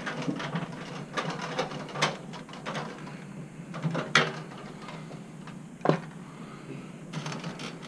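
Small clicks and rattles of a hand tool and wire leads being worked inside a fluorescent light fixture, with three sharper clicks spread a couple of seconds apart.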